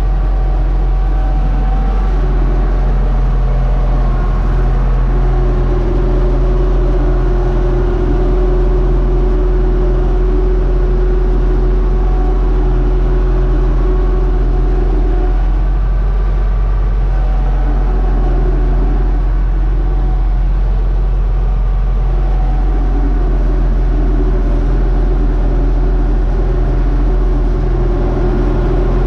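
Universal U-650 tractor's diesel engine running steadily under load as it pulls a three-furrow plough, heard from inside the cab as a constant loud drone.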